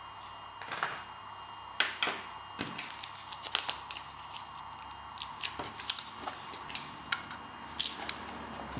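Hands unwrapping and handling a USB cable and its wrapping: irregular sharp clicks and crinkles, thickest a few seconds in.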